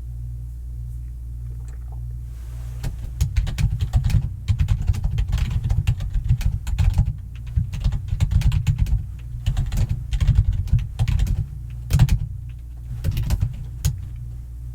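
Rapid, loud typing on a computer keyboard, starting about three seconds in, with short pauses, over a steady low hum.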